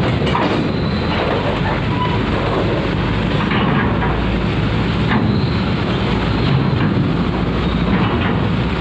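Tour coach's diesel engine running as it drives off a ferry's loading ramp and passes close by, a loud, steady low rumble.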